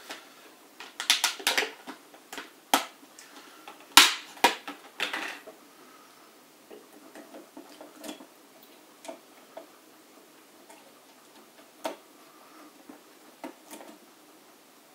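Sharp plastic clicks and taps from handling a DDR3 memory stick and the motherboard's memory-slot clips: a cluster of clicks about a second in, the loudest click about four seconds in, then scattered lighter taps.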